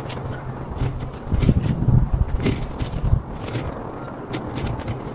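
A small engine running steadily under repeated sharp snapping and crackling, with a few heavy thumps between about one and three seconds in.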